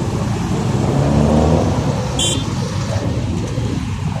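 City street traffic: car engines running in a steady low rumble as vehicles pass, with one brief high-pitched chirp about two seconds in.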